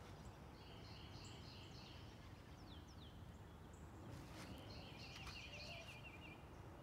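Faint bird calls: short repeated high notes and a quick trill about four to five seconds in, over a low steady outdoor rumble.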